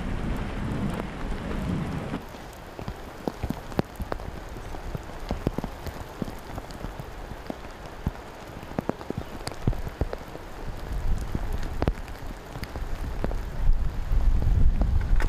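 Rain falling on wet stone paving, a steady hiss with many sharp ticks of single drops. A low rumble sits under it for about the first two seconds and swells to the loudest part of the sound near the end.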